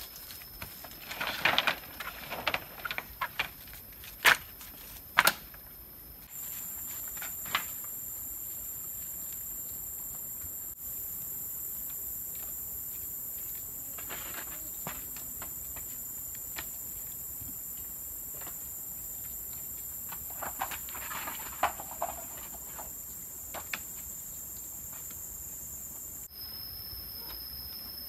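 Steady high-pitched drone of forest insects, which shifts abruptly twice, with rustling, footsteps and sharp clicks and knocks from someone moving through undergrowth and handling bamboo; the loudest clicks come in the first few seconds.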